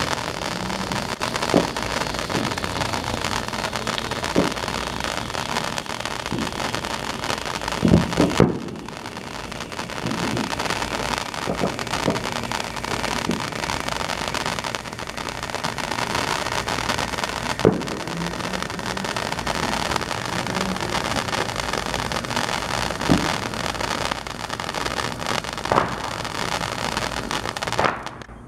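TNT Glow Saber handheld firework fountain burning with a steady hiss of spraying sparks and occasional sharp crackling pops. It dies away abruptly near the end as the fountain burns out.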